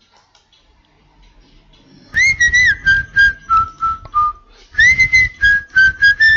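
A whistled tune starting about two seconds in: short notes stepping down in pitch, then a second phrase, over a low beat that keeps time with the notes.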